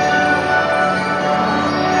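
Instrumental music with long held notes, accompanying the taiji fan routine.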